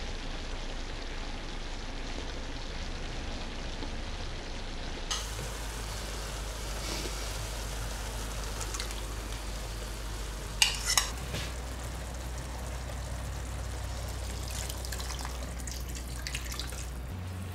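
Onion-tomato curry masala sizzling and simmering steadily in a pan, with two sharp knocks a little past the middle.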